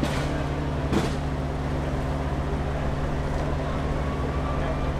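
A vehicle engine idling steadily, with two sharp knocks about a second apart near the start.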